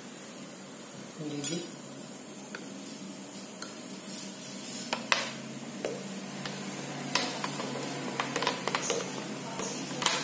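Kitchen utensils being handled: scattered clinks and knocks of metal spoons and a plastic food-chopper bowl, over a low steady hum.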